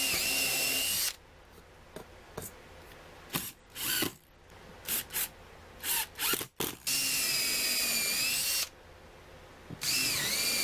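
Cordless drill driving screws into plywood: three long runs of a steady motor whine, one at the start, one about seven seconds in and one near the end, with several short trigger blips in between as screws are started and seated.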